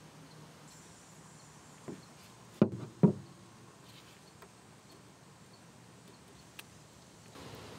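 A small plastic super glue bottle set down on the workbench: two sharp knocks about half a second apart, a couple of seconds in, after a lighter tap. A faint steady hum underneath, with a small click near the end as the split is pinched shut.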